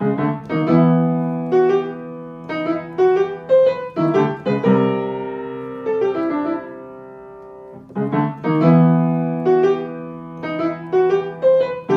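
Solo piano music: a melody of struck notes over held chords, with a quieter stretch in the middle before the notes pick up again.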